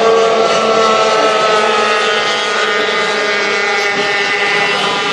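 A pack of small two-stroke racing outboard powerboats (O-250/O-350 class) running flat out, several high buzzing engine notes layered over one another, their pitches slowly drifting as the boats pass.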